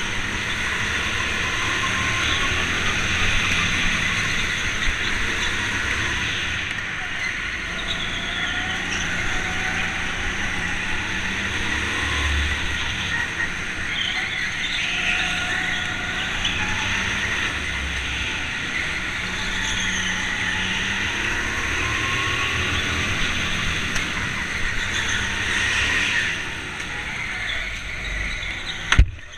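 Go-kart motor running hard on a lap, its pitch rising and falling with the throttle through the corners, over steady wind and tyre noise picked up by the kart's onboard camera. A sharp click cuts it off near the end.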